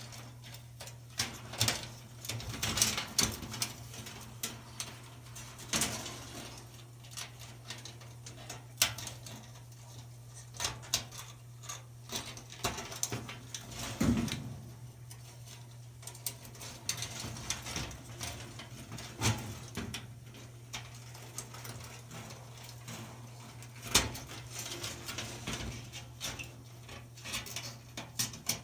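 Irregular light clicks, taps and scrapes of a coiled dryer heating-element wire being handled and threaded onto ceramic holders in a sheet-metal element housing, over a steady low hum.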